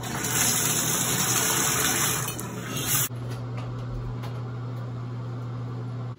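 Bathroom sink faucet running, water pouring into the basin, cutting off suddenly about three seconds in. A steady low hum continues underneath throughout.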